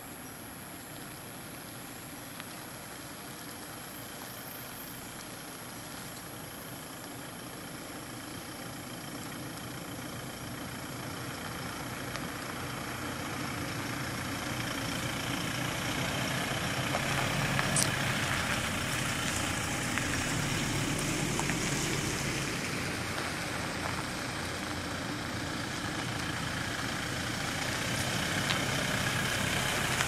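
Toyota pickup trucks driving slowly on a dirt road, engines and tyres growing steadily louder as they approach and pass close by. A single sharp click about halfway through.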